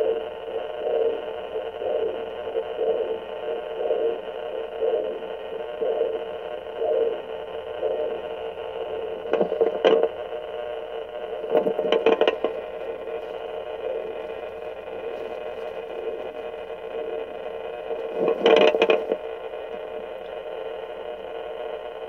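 Pocket fetal Doppler's speaker playing a pulsing heartbeat signal, about one beat a second, over a steady hiss. Louder scraping crackles come as the probe shifts, about ten, twelve and nineteen seconds in.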